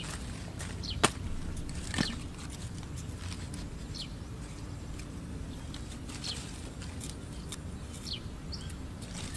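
Small birds chirping now and then over a low steady rumble. There is a sharp click about a second in and a knock about two seconds in, from bamboo sticks being handled while a snare is set.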